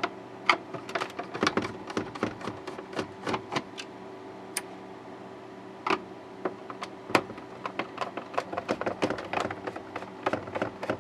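Irregular small clicks and taps of a screwdriver working screws out of a plastic monitor back, over a steady low electrical hum.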